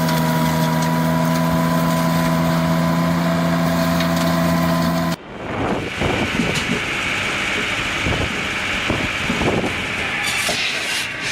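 Firewood machinery: a motor running with a steady hum, which stops abruptly about five seconds in. A noisier machine takes over, with scattered knocks and clatter of wood being handled.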